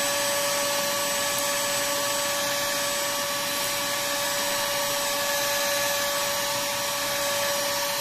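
Cordless 22.2 V battery vacuum running steadily through its bare intake tube, sucking up starch powder: a rushing of air with a constant high motor whine.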